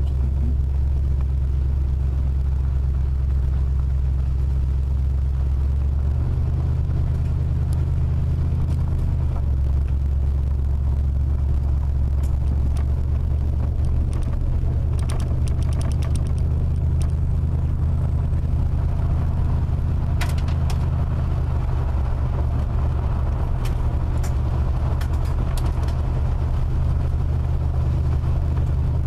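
Car driving on a gravel road, heard from inside the cabin: a steady low rumble of engine and tyres on gravel, with a few sharp ticks in the second half.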